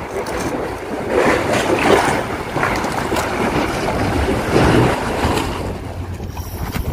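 Wind gusting across the microphone, rising and falling in surges, over the wash of the sea.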